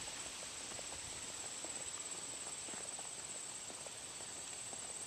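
Steady, high-pitched, finely pulsing trill of insects such as crickets or katydids, over faint outdoor background noise, with a few light ticks.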